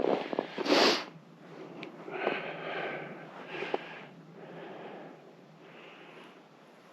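Footsteps crunching in frozen, crunchy snow: one loud crunch about a second in, then slower, softer steps about every 1.2 s that fade.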